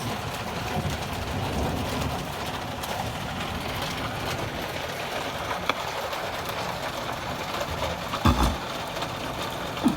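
Steady heavy rain and wind noise, an even hiss with a low rumble underneath. A single low thump sounds a little past eight seconds in.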